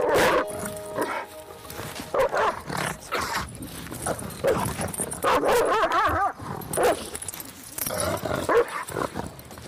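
A dog barking and whining in repeated short outbursts, with a wavering, drawn-out whine a little past the middle.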